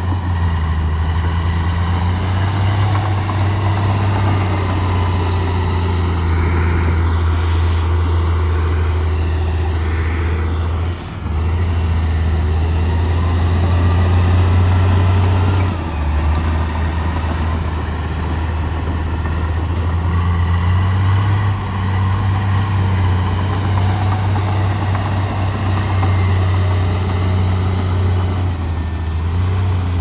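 Bulldozer's diesel engine running steadily with a deep, even hum that breaks off briefly about eleven and sixteen seconds in.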